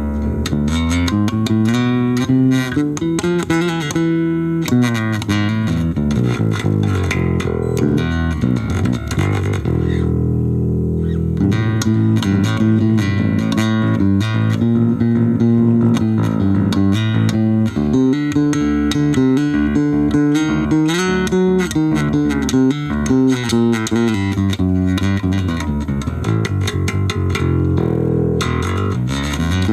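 Charvel four-string Precision-style electric bass played through a VOX Soundbox Mini amplifier with nothing in between: a continuous line of plucked notes, a few of them sliding in pitch.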